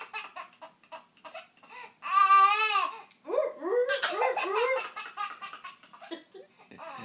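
A child laughing in short bursts, broken about two seconds in by one loud, held vocal imitation of a seal lasting about a second; the child then laughs again in runs of rising squeals.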